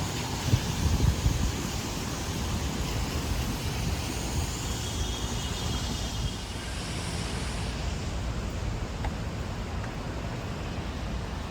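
Steady city street traffic noise, with wind rumbling on the microphone; a high hiss fades about eight seconds in.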